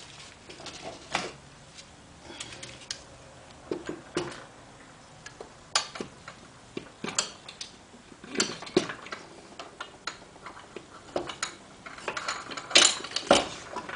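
Irregular metal clicks, taps and knocks from a BMW K75 gearbox being handled and fitted up to the engine's clutch housing, with a cluster of louder knocks near the end.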